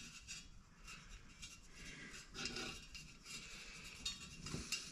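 Faint metallic clinks and light rubbing as the aluminium fan blade's hub is handled and seated on the blower motor shaft inside the wire fan guard, with a sharper click near the end.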